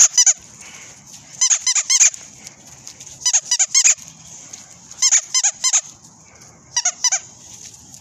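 Squeaky toy ball being chewed by a dog, squeaking in five quick runs of three or four squeaks each, one run every couple of seconds.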